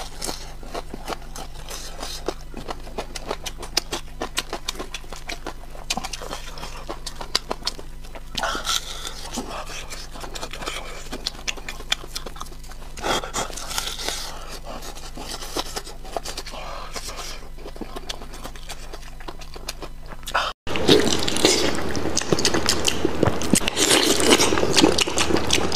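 Close-miked chewing and crunching of crispy breadcrumb-coated fried chicken: a run of small crackles and clicks with a few louder crunches. Near the end, after an abrupt cut, louder and wetter chewing and biting of braised meat.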